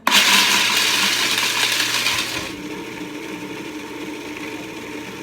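Food processor switched on and grinding a cup of roasted hazelnuts. It starts suddenly with a loud rattling clatter of whole nuts for about two and a half seconds, then settles into a quieter, steady whir.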